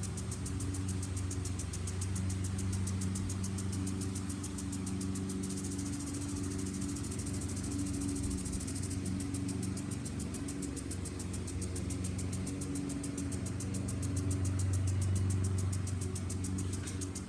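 Lawn mower engine running steadily, growing a little louder about three-quarters of the way through, with a fast, even high-pitched ticking over it.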